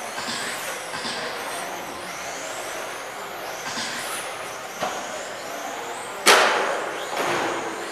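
1/10-scale electric RC touring cars with 21.5-turn brushless motors racing: high motor and gear whines rising and falling in pitch as the cars pass. A sudden loud bang about six seconds in is the loudest thing, with smaller knocks just before and after it.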